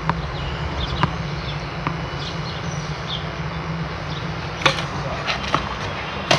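Tennis ball bouncing on a clay court and racket strings striking the ball: a few light pops early, a sharp crack of a serve about four and a half seconds in, and another hit near the end, over steady outdoor background noise.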